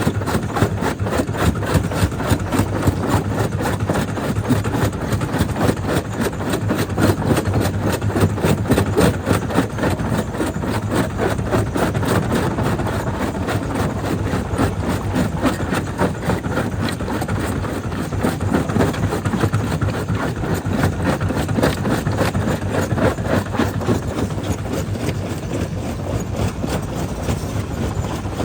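Jaw crusher running steadily as it breaks stone: a continuous rumble with a dense, rapid rattle, easing slightly near the end.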